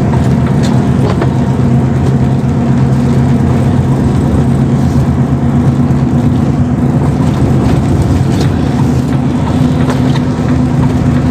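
Truck engine running steadily at cruising speed, heard from inside the cab as a constant low hum, with tyres hissing on the wet road.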